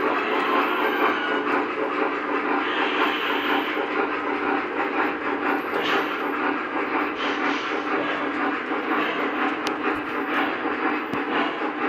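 O-gauge Lionel model steam locomotives and cars running steadily on three-rail track: a continuous rolling rumble of wheels, mixed with the locomotives' electronic steam sound effects.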